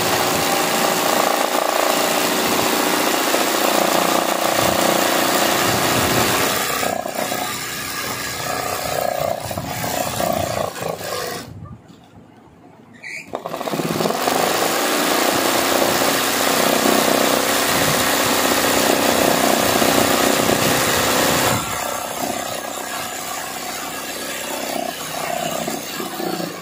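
Sewing machine running fast, stitching free-motion embroidery through fabric held in a hoop, its whine rising and falling with the speed. It stops for about two seconds around twelve seconds in, starts again, runs slower and quieter for the last few seconds and stops at the end.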